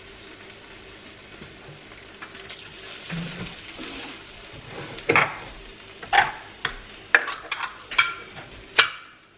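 Sweet and sour sauce sizzling in a hot pan on the stove as ingredients go in, then a series of sharp clinks of a utensil against the pan in the last few seconds.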